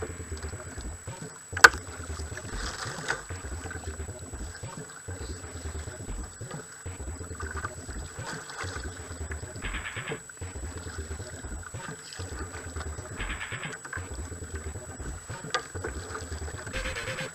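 Sea water lapping against a kayak's hull in a low, regular pulse about once a second. A single sharp click comes about one and a half seconds in.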